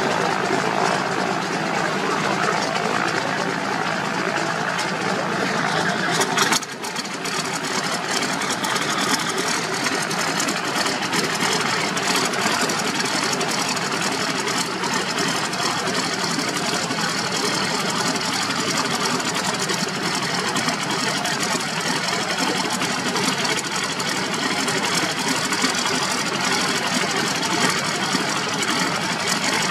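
Cessna FR172H Reims Rocket's piston engine running steadily at idle ahead of taxi and take-off, with a single sharp knock about six and a half seconds in.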